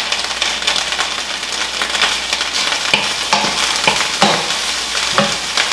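Diced beef loaf sizzling in a nonstick frying pan while a wooden spatula stirs it, with irregular scrapes of the spatula against the pan over the steady frying hiss.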